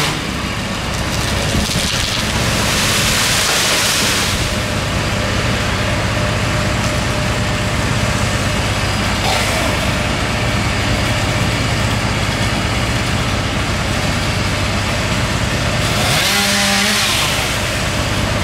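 Petrol chainsaw engine running steadily, with two spells of the saw cutting through wood, one about two seconds in and one near the end, where the engine revs up and down.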